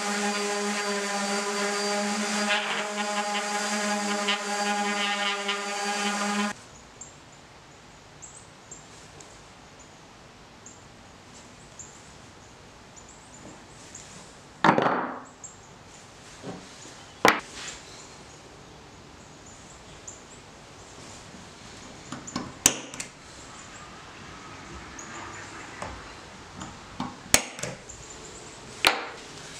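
DeWalt random orbital sander running steadily against a wooden board, cutting off about six seconds in. A few sharp knocks and clicks of small parts being handled on the wood follow.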